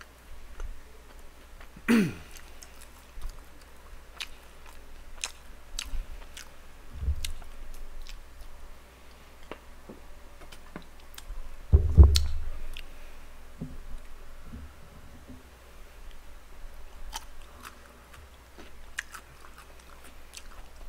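Close-miked chewing and biting of boneless fried chicken, with small wet clicks of the mouth throughout. A short falling vocal sound comes about two seconds in, and a loud low thump about twelve seconds in, just after a drink from a plastic cola bottle.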